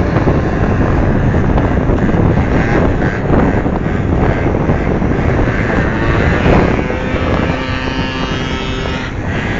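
Wind buffeting the microphone over the rumble of a moving vehicle, with faint steady tones for a second or two near the end.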